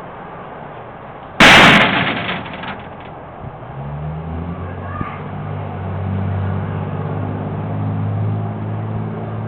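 A sudden loud bang about a second and a half in, with a brief rattle after it, which the driver reckons was a bird striking the vehicle. Afterwards a low drone rises in and holds steady, like the vehicle's engine.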